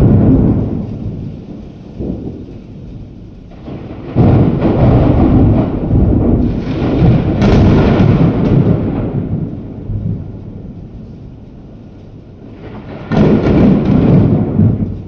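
Thunder rolling in three long peals. One fades out over the first couple of seconds, a second breaks in sharply about four seconds in and rumbles on for several seconds, and a third comes near the end.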